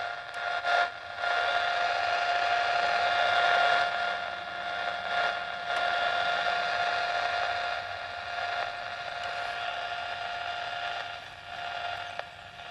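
Shortwave receiver's speaker hissing with noise from an RX2 antenna noise bridge, with a steady whistling tone running through the hiss. The whistle fades about two-thirds of the way through and briefly returns near the end.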